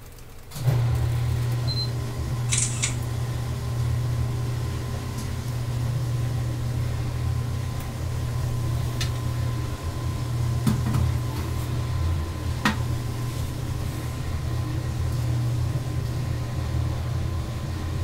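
Electric hair clippers switched on about a second in and running with a steady low buzz, with a few light clicks.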